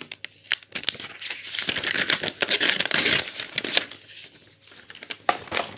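Protective plastic film being peeled off a new smartphone: a dense crackling tear lasting over a second, starting about two seconds in, with sharp clicks of handling before and after it.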